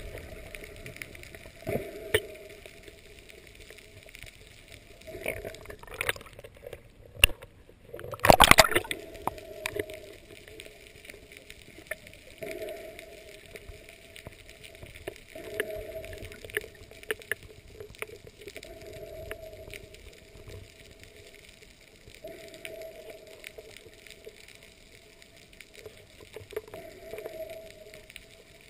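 Underwater sound of the sea picked up by a camera below the surface: gurgling water with scattered clicks and a recurring muffled sound every few seconds. A loud rush of water about eight seconds in.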